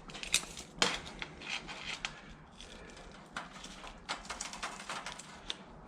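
Irregular clicks, light knocks and scraping of asphalt roofing shingles being handled and worked by hand, with the two sharpest knocks near the start.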